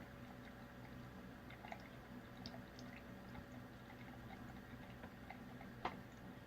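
Faint, scattered small ticks and drips over a low steady hum, with one slightly sharper tick near the end.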